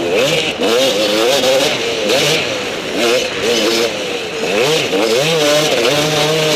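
Enduro dirt bike engine revving up and down over and over as the rider works the throttle.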